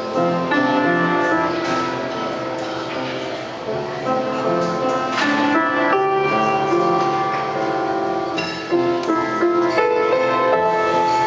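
Piano playing an instrumental passage, with chords and melody notes moving steadily.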